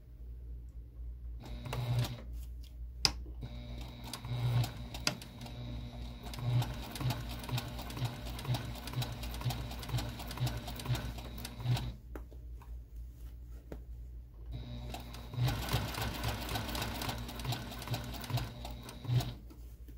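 Domestic electric sewing machine stitching through several layers of fabric in two runs, stopping for about three seconds in between.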